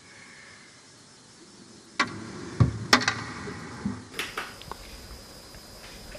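Faint hiss, then a scatter of sharp knocks and clicks with a few heavy low thumps, starting about two seconds in.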